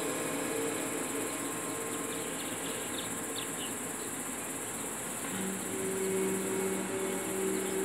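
A steady, high-pitched chorus of insects buzzing in summer trees and grass. A low steady hum comes in about five seconds in.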